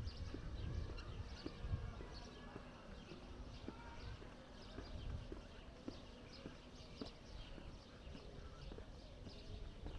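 Walking footsteps on pavement, a steady pace of about two steps a second, with small birds chirping in the background.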